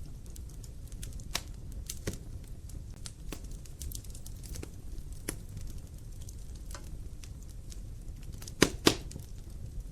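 Wood logs burning in a fireplace: a steady low rumble of the flames with irregular sharp crackles and pops, the two loudest in quick succession near the end.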